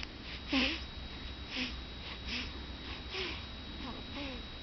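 A baby snoring: quick, snuffly breaths a little more than one a second, several with a short squeaky whistle. The first breath, about half a second in, is the loudest.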